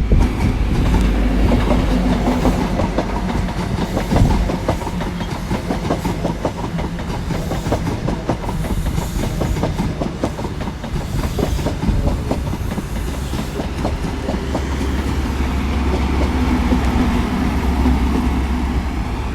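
CrossCountry High Speed Train (InterCity 125) passing close by: a diesel power car goes by first, then the coaches' wheels clatter rhythmically over the rail joints, and the rear power car's engine comes by near the end.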